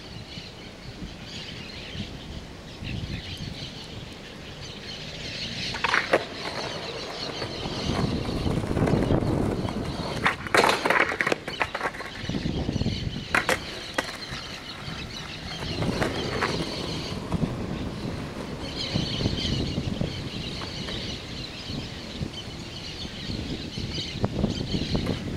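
Skateboard wheels rolling over rough concrete in several runs, with sharp clacks of the board hitting the ground during kickflip attempts, a few of them close together near the middle. Birds chirp in the background.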